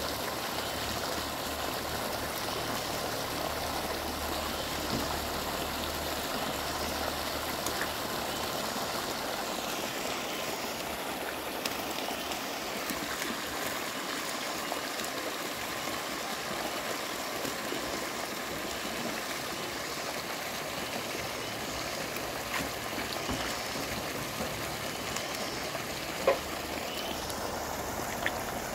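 Water running steadily through a shallow fish pond as it is drained, with small splashes from wading and a landing net. One sharp click near the end.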